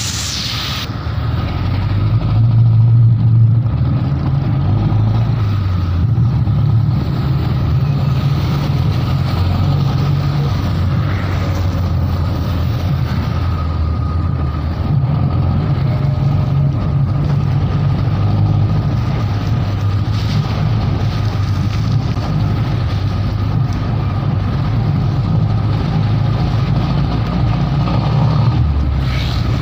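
Engine of a moving passenger vehicle running steadily with a low drone, mixed with the hiss of tyres on a wet road, heard from aboard.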